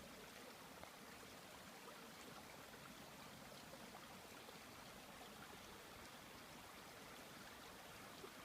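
Faint, steady running water of a small babbling brook.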